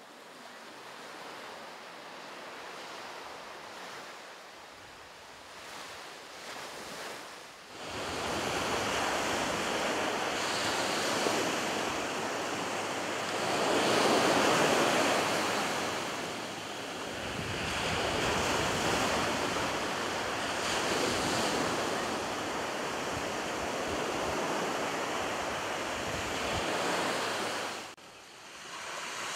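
Ocean surf washing onto a beach: a steady rush of waves that swells and eases in slow surges. It is faint at first, grows much louder about eight seconds in, peaks about halfway, and drops away suddenly near the end.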